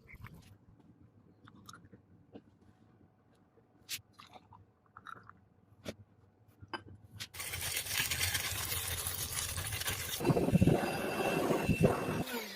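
Faint scattered clicks, then about seven seconds in a loud, harsh grinding noise of abrasive work on the steel knife blank starts and runs steadily, with a thin whine joining about ten seconds in.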